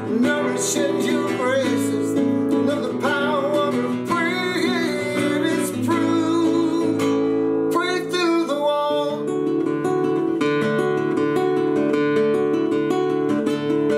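A man singing to his own strummed nylon-string classical guitar. The voice stops about nine seconds in and the guitar strums on alone.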